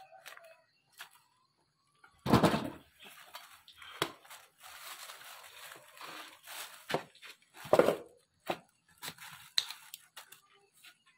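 Cassava roots being peeled by hand with a knife: scraping and tearing of the peel, and the plastic bag of peelings crackling, with two louder rustling knocks about two and eight seconds in.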